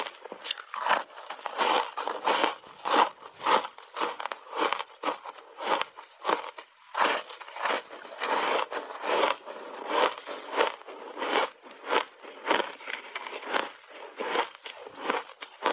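Chewing of dry, crunchy block ice coated in matcha and milk powder: a steady run of crisp crunches, roughly two a second.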